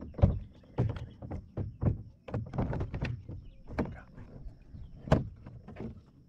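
Plastic fishing kayak knocking and bumping against a wooden dock: a string of irregular knocks and thumps, a couple a second, with a louder knock about five seconds in.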